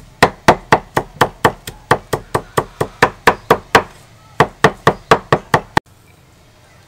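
Cleaver chopping green herbs on a wooden chopping board: quick, even knocks about four a second. They pause briefly a little past the middle, resume, then cut off suddenly near the end.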